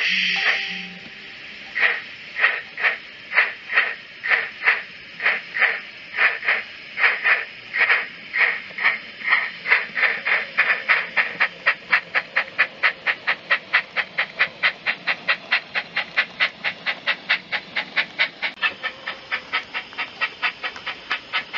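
Steam exhaust chuffs from the DCC sound decoder of a Bachmann Double Fairlie model locomotive. They start about two seconds in at roughly two a second and quicken steadily to a fast beat of about five a second. A steam hiss fades out at the very start.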